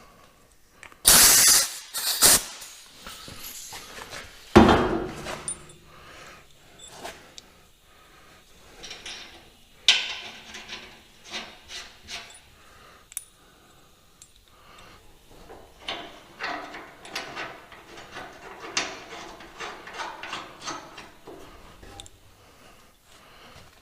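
Hand tools tightening bolts on a steel snowblower mount: metal clanks, knocks and clicks, with a short loud burst about a second in, a sharp clank about four and a half seconds in, and a run of small clicks near the end.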